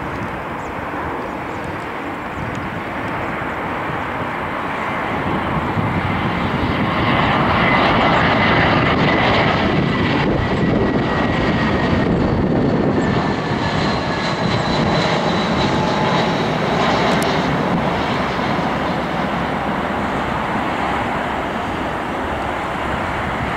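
Airbus A320 airliner's twin jet engines on final approach to land. The jet noise builds as the aircraft comes in low and passes close by, and is loudest a little under halfway through, with a faint whine falling in pitch as it goes past. It then settles to a steady, slightly quieter noise as the aircraft reaches the runway.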